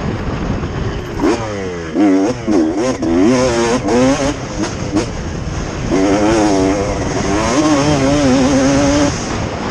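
Motocross bike engine revving. Its pitch climbs several times in quick succession, as on acceleration through the gears, then holds a wavering high note for about three seconds before dropping away near the end.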